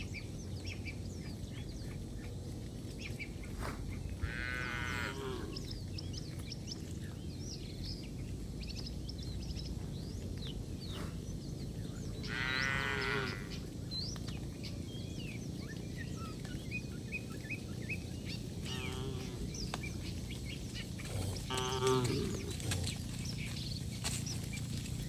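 Cattle mooing: four separate, wavering calls, one about four seconds in, a strong one about twelve seconds in, a weaker one near nineteen seconds and the loudest near twenty-two seconds, over a steady low background.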